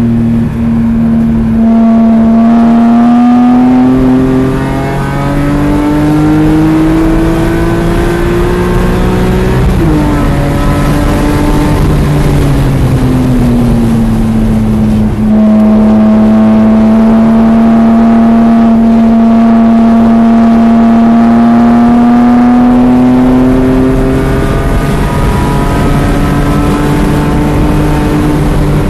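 BMW E46 M3's S54 straight-six running hard on track, heard from inside the cabin over wind and tyre noise. It climbs in pitch under acceleration, drops sharply about ten seconds in and eases lower, holds a steady note through the middle, then climbs again near the end.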